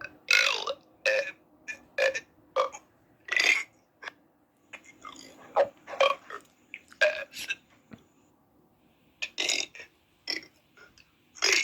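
A person burping the alphabet: a string of about a dozen short burps, each one a letter, with a longer gap about four seconds in.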